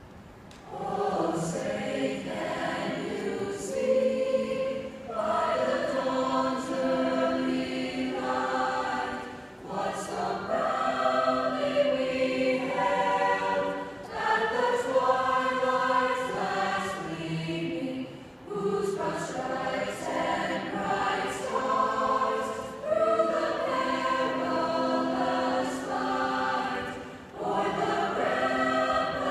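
A girls' choir singing, amplified through microphones in a large arena, in long sung phrases of about four to five seconds with short breaks for breath between them.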